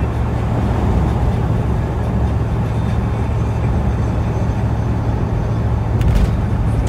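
Steady road and engine noise heard inside a car cruising at highway speed, with a strong low hum. A brief sharp click about six seconds in.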